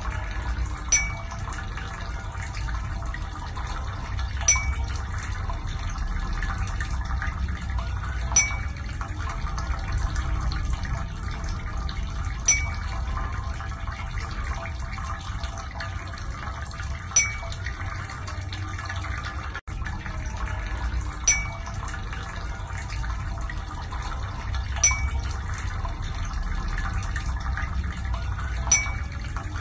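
Steady rushing, water-like noise with a short ringing plink, like a drip, about every four seconds.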